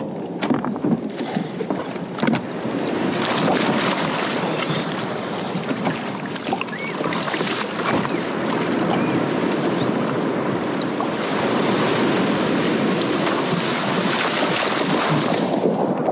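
Sea water rushing and sloshing around a fishing kayak's hull as it rides in through breaking surf, with wind buffeting the microphone. It swells louder in the second half as the surf washes around the kayak in the shallows, with a few sharp ticks about a second in.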